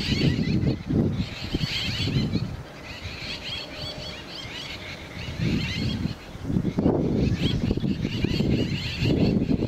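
Birds chattering in short clusters of quick high notes, over an uneven low rumble that comes and goes, quieter around the middle.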